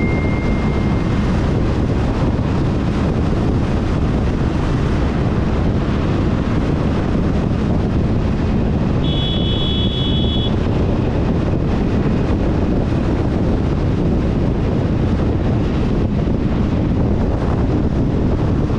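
Steady rush of wind buffeting a motorcycle rider's camera microphone while riding at highway speed, mixed with road and engine noise. A short high beep sounds about nine seconds in.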